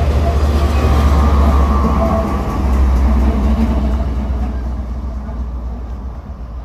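Canadian Pacific diesel locomotive, the train's rear pushing unit, passing close by: deep engine rumble with steel wheels running on the rails, loud at first, then fading steadily over the last few seconds as it moves away.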